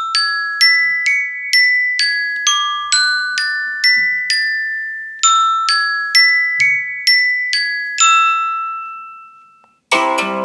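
iPhone 13 Pro ringtone: a melody of struck, bell-like mallet notes, about two a second, with a short pause midway, ending on a long ringing note that fades out. A different ringtone with dense plucked chords starts just before the end.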